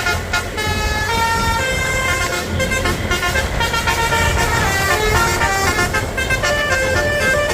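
A bus's Basuri telolet horn playing a melody, several tones sounding at once and stepping from note to note, over the low rumble of the bus.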